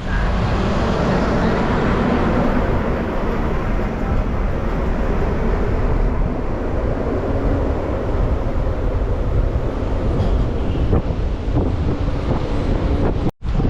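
Steady rumble and wind noise of a car driving on the road.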